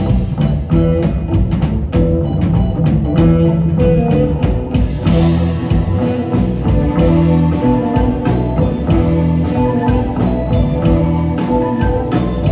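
Psychedelic rock band playing live and instrumental: electric guitars over a drum kit.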